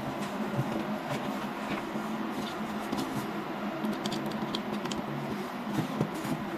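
Light clicks and handling noise from a gaming headset's detachable cable and 3.5 mm plugs being worked, a few small clicks about four seconds in and again near the end, over a steady low hum.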